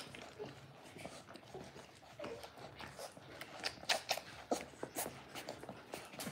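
Dalmatian puppies suckling from their mother: a run of irregular, quick wet smacks and clicks.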